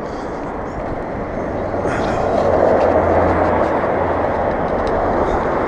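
Rushing wind and road noise on a camera mounted on a mountain bike being ridden along an asphalt street. It grows louder about two seconds in, over a steady low hum.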